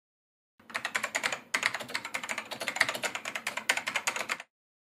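Typing sound effect: a quick run of key clicks, about ten a second, starting about half a second in and stopping shortly before the end.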